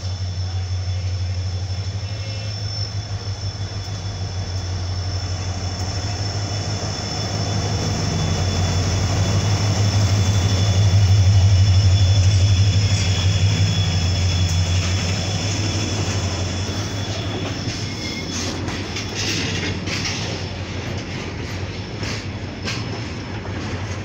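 WDG4 (EMD GT46MAC) diesel locomotive's two-stroke V16 engine running with a deep steady hum as it passes close by, loudest about halfway through, with a steady high whine above it. In the last third the empty freight wagons follow, their wheels clicking over the rail joints.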